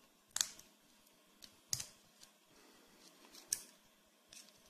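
Sharp small clicks of a flathead screwdriver prying the bearing's locking clip out of a baitcasting reel's side plate: three louder clicks spaced about a second or more apart, with a couple of fainter ticks between.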